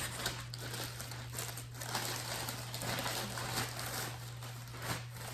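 Packaging crinkling and rustling as a parcel is opened by hand, with irregular crackles and a few sharper clicks, over a steady low electrical hum.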